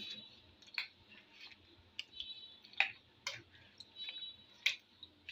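Metal spoon clinking against the side of a glass bowl while stirring sago pearls and fruit in milk. About seven irregular clinks, each with a short, bright ring.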